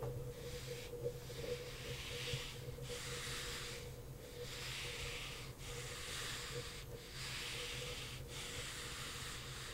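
Handheld eraser rubbing across a whiteboard in repeated wiping strokes: a soft hiss that swells with each stroke and dips briefly between strokes.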